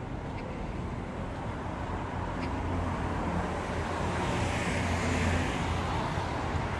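Road traffic going by: a steady low rumble of vehicles and tyre noise that builds gradually, swelling about four to five seconds in as a vehicle passes.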